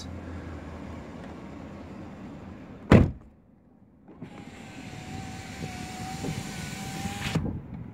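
The 6.2-litre V8 idles, then a car door shuts with a heavy thump about three seconds in and the cabin goes quieter. About a second later a power window motor whines steadily for about three seconds and stops.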